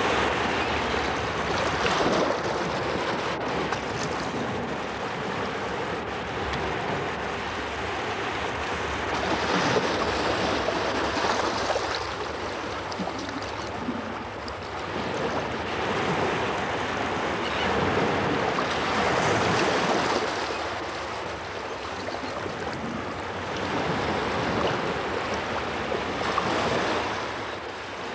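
Sea surf: waves rushing and washing in, swelling and easing every few seconds.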